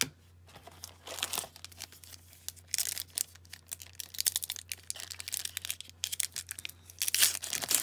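Foil wrapper of a 2009-10 Upper Deck Victory hockey card pack crinkling and tearing as it is ripped open by hand, in uneven bursts with the loudest tearing near the end.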